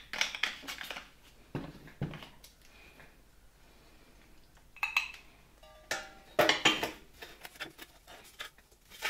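Light metallic clinks, knocks and scrapes, a handful of separate strokes with quiet gaps between, as the rusty steel housing of an old vacuum cleaner is handled while rust remover is applied to it.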